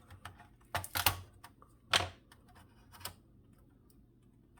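Clicks and knocks of a PS5 Slim's internal parts being handled during disassembly: a few taps about a second in, a louder knock about two seconds in and another near three seconds.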